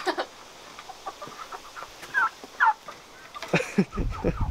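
Domestic poultry clucking in a backyard pen, with a few short falling calls a little past the middle. A low rumble comes in near the end.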